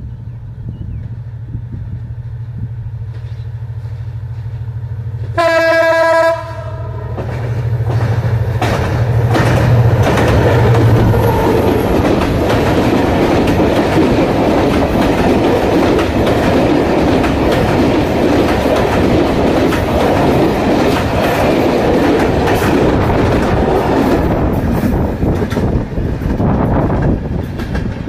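Diesel locomotive running as it approaches, its engine hum growing louder. It gives one horn blast of about a second, about five seconds in. The passenger coaches then pass close by across a steel girder bridge, their wheels clattering and rumbling for about twenty seconds.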